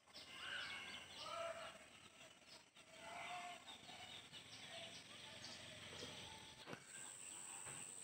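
Faint rural outdoor ambience with scattered short animal and bird calls, a single click near the end, and a steady high-pitched tone that comes in near the end.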